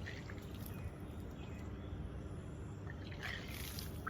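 Salt water being vomited up and splashing out of the mouth, brought up with two fingers at the back of the throat in kunjal kriya, the yogic stomach-cleansing practice. A louder gush comes about three seconds in.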